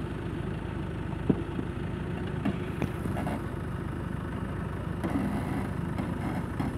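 First-generation Land Rover Discovery's engine running steadily at low revs as the off-roader crawls slowly over uneven ground. A single sharp knock sounds about a second in.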